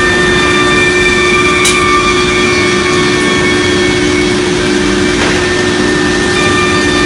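CNC router with a 6 kW HSD spindle running steadily: a constant machine drone with several steady whining tones over it, and a faint click about one and a half seconds in.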